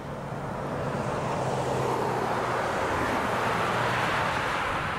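Distant approaching diesel freight train: a rushing rumble that swells over about four seconds, with a low steady hum underneath.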